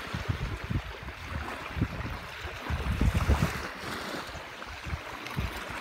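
Wind buffeting the microphone in irregular gusts over the steady wash of small waves on the shoreline.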